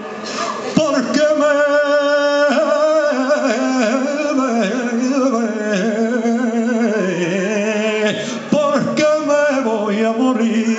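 A man singing copla in flamenco style: the drawn-out, ornamented closing phrase of the song, with long held notes and a wavering vibrato. The line breaks off briefly near the end and picks up again.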